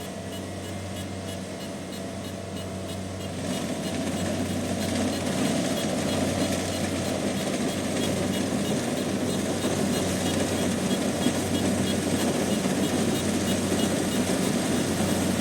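Kubota DC70 combine harvester's diesel engine running steadily with a low hum and mechanical rumble, growing louder about four seconds in.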